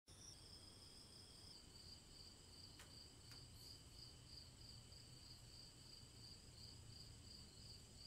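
Faint night crickets chirping: a steady, high, evenly pulsing trill.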